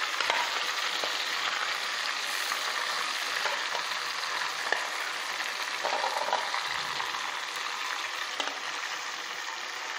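Yogurt-marinated chicken sizzling steadily in hot oil with browned onions, as the yogurt marinade is poured into the pan from a bowl.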